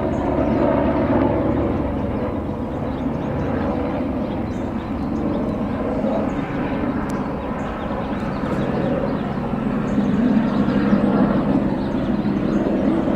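Police helicopter flying overhead: a steady engine and rotor drone that grows louder about ten seconds in.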